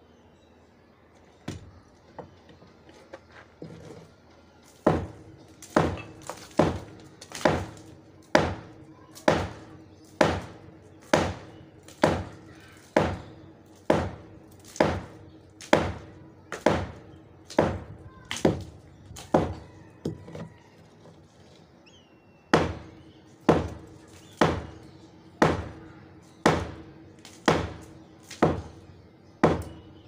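Hand hammer striking a steel-mesh-reinforced concrete slab to break it up. One blow comes about a second and a half in, then steady blows about one a second, with a short pause about two-thirds of the way through before they resume.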